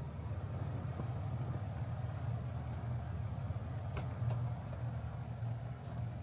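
Vehicle engine running steadily with a low hum, with a couple of faint clicks about four seconds in.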